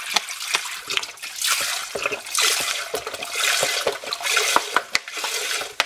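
Liquid poured from a plastic bottle into a stainless steel pot, splashing steadily as the pot fills.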